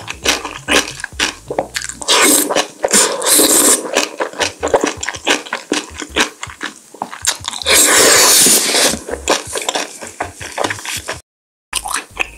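Close-miked slurping and chewing of black bean noodles (jjajangmyeon), with many small mouth clicks and two long, loud slurps, one about two seconds in and one about eight seconds in. The sound cuts out briefly near the end.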